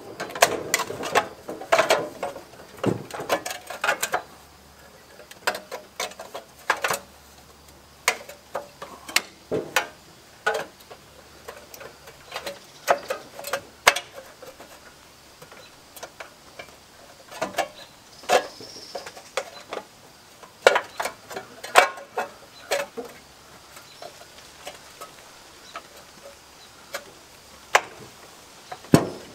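Irregular clinks, taps and knocks of hand tools and metal engine parts being handled, dozens of separate strikes at uneven intervals, with no engine running.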